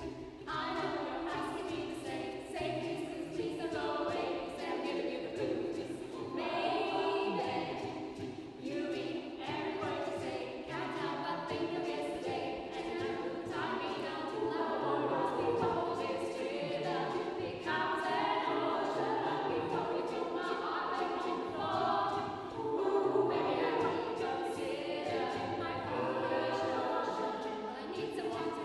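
Mixed-voice amateur choir singing a cappella without a break, steady low voices holding under moving upper parts.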